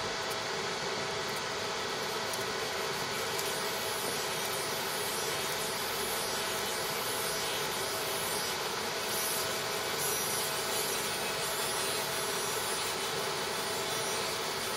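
A 100 W fiber laser cleaning head ablating the weld line of a metal pipe fitting as the fitting turns in a rotary chuck: a steady, even hiss at a constant level.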